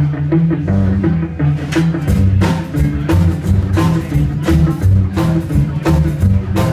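Live rockabilly band playing an instrumental passage: upright bass line, drum kit and electric guitar.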